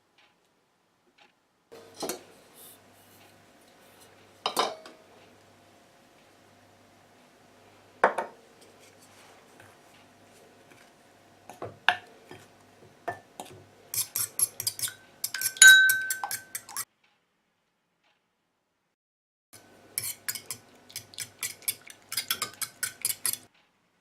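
A metal utensil clinking against a ringing mixing bowl: a few single knocks, then two quick runs of clinks from stirring or whisking batter, with a short break between them.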